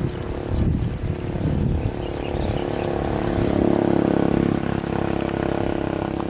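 A steady mechanical hum that swells for a second or so near the middle, with wind buffeting the microphone.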